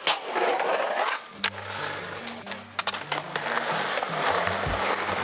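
Skateboard wheels rolling on concrete, with sharp clacks of the board hitting the ground. About a second and a half in, music with a stepping bass line comes in underneath.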